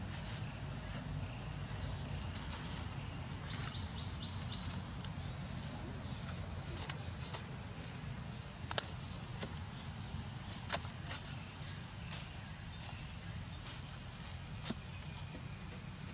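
Insects droning steadily in a high, even chorus, with a few sharp knocks and scrapes of a spade blade biting into dry, stony soil.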